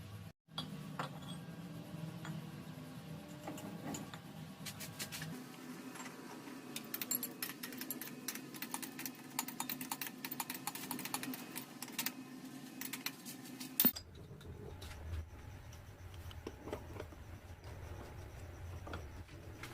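Metal lathe running with a steady hum, with many light metallic clicks and clinks of tool and workpiece. The hum changes abruptly to a lower one about two-thirds of the way through.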